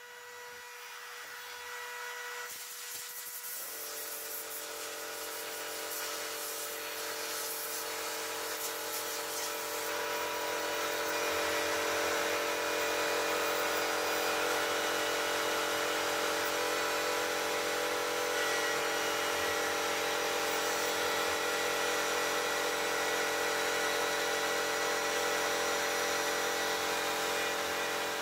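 CNC router's rotary-tool spindle running steadily, its 5 mm end mill milling through 5 mm aluminium plate. The whine and cutting noise build over the first several seconds and then hold steady.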